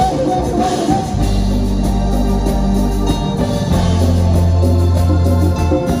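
Live band music: sustained keyboard chords over deep held bass notes, with a louder low bass note from about four seconds in until just before the end.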